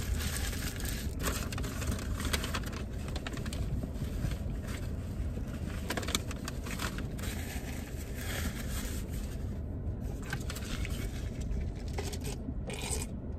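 Foil burger wrapper and takeout packaging crinkling and rustling, with chewing, over a steady low hum. Near the end, soda slurped through the lid of a paper coffee cup.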